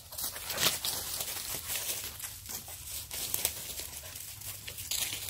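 Irregular rustling and crinkling from a hammock tarp's nylon fabric and guy lines being handled and pulled while the tarp is rigged.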